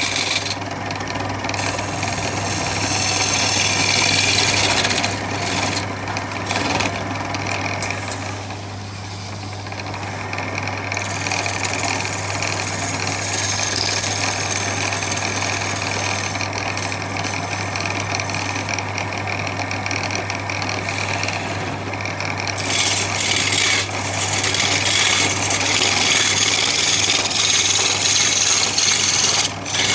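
An electric power tool working wood, its motor running with a steady hum under a rough abrasive noise that eases for a few seconds twice.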